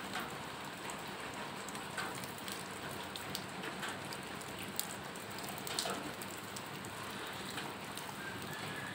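Water from a watering can pouring and splashing onto potting soil in plastic seedling cups and the wet concrete around them: a steady patter with scattered drips, wetting freshly sown seeds.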